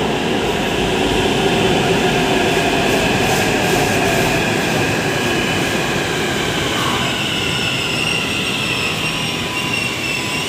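Electric metro train pulling into the platform: a steady rush of wheels on rail with a high whine that slowly falls in pitch as the train slows.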